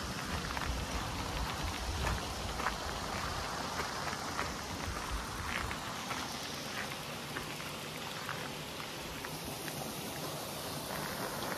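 Bicycle tyres rolling on a gravel forest track: a steady hiss with scattered small ticks of grit, over a low rumble that drops away about halfway through.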